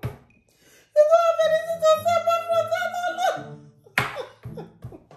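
A woman laughing helplessly: one long, high, squealing note held for about two seconds, then a short sharp burst of noise about four seconds in.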